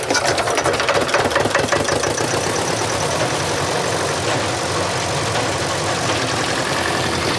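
Massey Harris 701 hay baler running with its engine: a fast, even mechanical clatter over a steady engine note, the clatter most distinct in the first few seconds.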